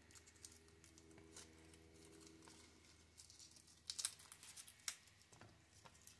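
Faint crinkling of dry garlic skins being peeled by hand off crushed cloves, with a few soft clicks about four and five seconds in. A faint low hum runs under the first half.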